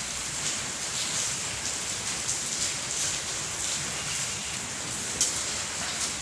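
Steady rain falling, a continuous hiss with scattered louder drops and one sharper drip about five seconds in.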